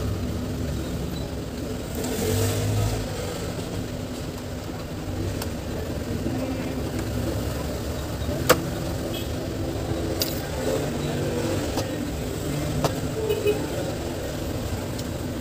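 Steady low rumble like passing street traffic, with faint voices. A few sharp clicks in the second half come as a wall clock is handled and turned over.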